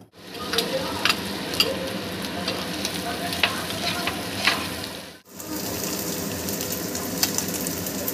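Stir-fry of vegetables, egg and chicken sizzling in a hot kadai, with the spatula knocking and scraping against the pan every half second or so as it is stirred. About five seconds in the sound cuts out briefly, and the sizzling resumes steadily with only an odd knock.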